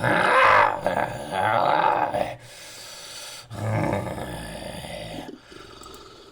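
Monster roar sound effect built from animal-like roars and growls: a long, loud roar over the first two seconds or so, then a second, weaker growling roar about three and a half seconds in.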